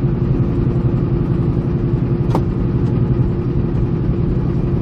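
Steady low rumble of a semi truck's diesel engine and road noise heard inside the cab while driving, with a constant hum over it. A single sharp click a little over two seconds in.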